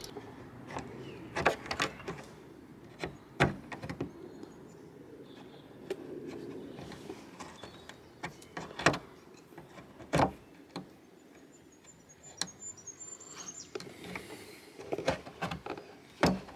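Irregular sharp knocks and clicks from hand work on the vehicle's bodywork and parts, with quiet stretches between.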